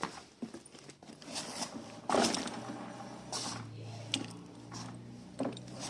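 Yamaha NMAX V2 scooter's single-cylinder engine running at idle, with a steady low hum, scattered light clicks and rattles from the drive, and a louder rushing burst about two seconds in.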